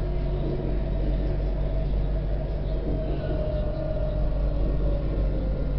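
Tram running on its rails, heard from the driver's cab: a steady low rumble with a faint motor whine that slowly falls in pitch as the tram slows for a station.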